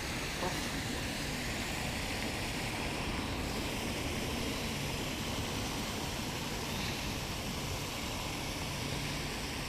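Steady rushing outdoor background noise with no distinct event.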